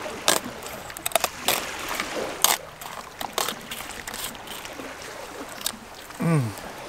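Fillet knife cutting through a northern snakehead's rib bones: a run of sharp, irregular crackles and clicks as the blade saws along the fish.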